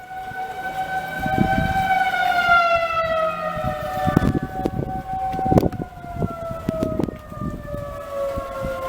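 Outdoor civil-defense warning sirens wailing for a tornado warning, at least two heard at once, their pitches slowly drifting downward. Several short low thumps break in over the sirens.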